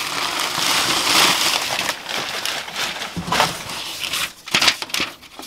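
Packing paper and loose papers crinkling and rustling as hands rummage through a cardboard box: a continuous rustle for about the first two seconds, then scattered crackles and light knocks.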